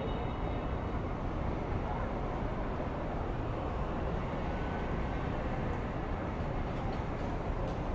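City street ambience: a steady wash of traffic noise with a constant low rumble and no single event standing out.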